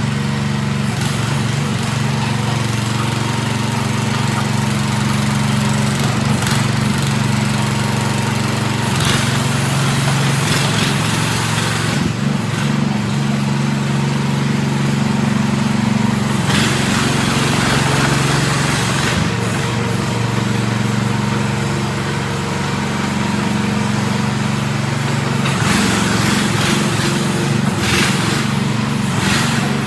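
The AGT 12 mini excavator's 420cc single-cylinder gas engine running steadily, with a few stretches of louder hiss over the engine note.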